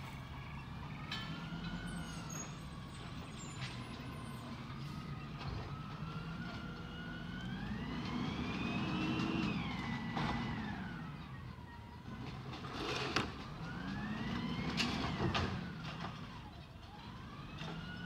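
Peterbilt 320 garbage truck with an Amrep body running its hydraulics. The engine and hydraulic pump whine rise and fall in pitch together several times, the longest swell peaking about halfway, as the truck works the carts at the curb. A couple of sharp metallic clanks come in the second half.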